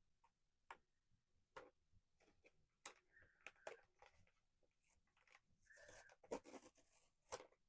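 Faint taps, clicks and short scrapes of a small cardboard blind box being handled and opened by hand.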